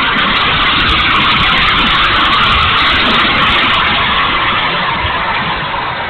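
E-flite F-16 70mm electric ducted fan jet in flight, heard from on board: a steady rushing of the fan and wind over the airframe that eases slightly near the end.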